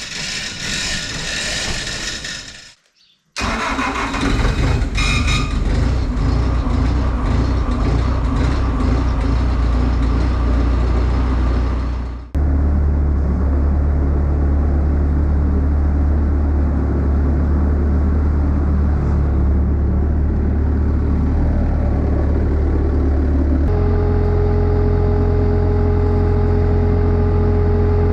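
A vehicle engine running, heard in several cut-together stretches: a steady low engine hum from about twelve seconds in, with a steady higher tone joining near the end.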